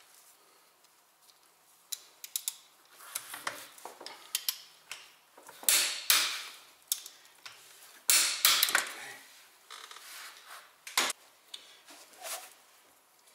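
Metal hand tools and car parts being handled: scattered clinks and knocks, two louder, longer clatters around the middle, and a sharp knock near the end.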